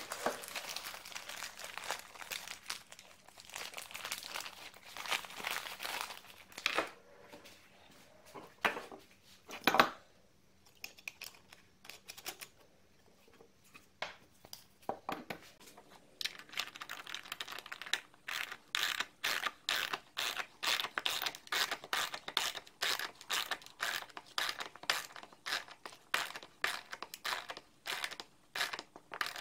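Small socket ratchet clicking as it turns a bolt to drive a self-tapping threaded insert into wood, a steady run of sharp clicks, about three a second, through the second half. Before that, crinkling and handling noises, then a short quiet spell.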